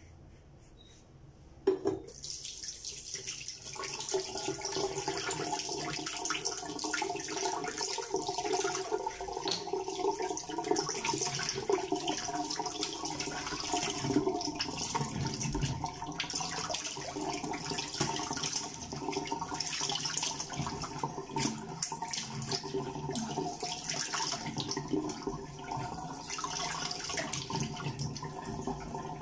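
A sharp knock about two seconds in, then a tap running steadily into a sink.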